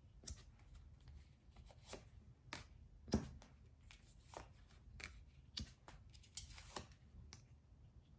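Faint taps and slides of tarot cards being dealt and laid down one by one on a table: a series of soft, irregular card clicks, the loudest about three seconds in.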